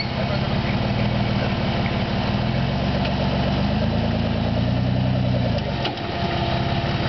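Off-road buggy's engine running under load as the buggy climbs out of a deep muddy rut, revving up about two and a half seconds in, holding the higher pitch, then dropping back to idle about six seconds in.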